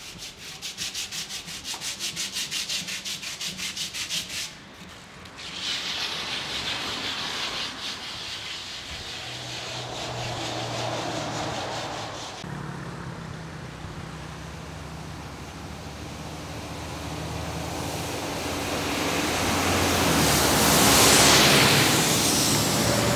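Scuffing and rubbing on the microphone of a handheld camera, at first in quick even strokes, then street traffic. A city bus's engine and tyres rise to a swell and pass by near the end, the loudest sound here.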